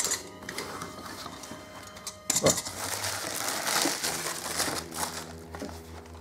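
Bubble wrap and plastic packaging crinkling and rustling as it is pulled out of an opened cardboard shipping box, starting with a sharp knock about two seconds in.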